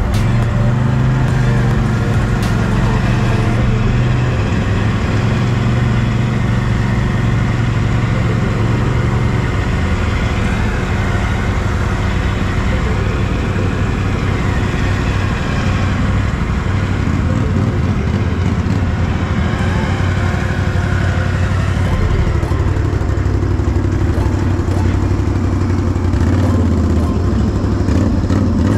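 Can-Am Renegade 1000R ATV's V-twin engine running under way on a dirt trail, its pitch rising and falling with the throttle and settling lower in the last few seconds as it slows.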